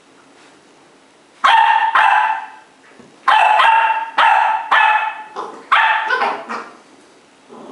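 Cardigan Welsh Corgi puppy barking in play: two high-pitched barks, then after a short pause a quick run of about seven more, the last few weaker.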